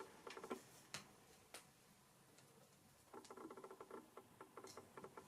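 Faint hand-handling noises from shaping small craft pieces. A few small clicks in the first second and a half, a short lull, then a rapid faint scratching patter from about three seconds in.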